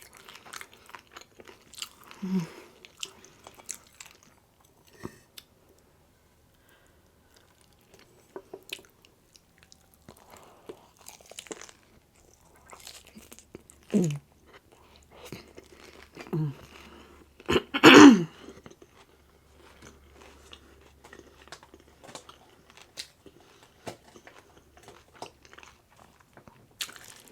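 A person biting and chewing crunchy rolled tacos, with scattered crackling crunches and wet chewing. A few short sounds from the voice break in, the loudest about eighteen seconds in.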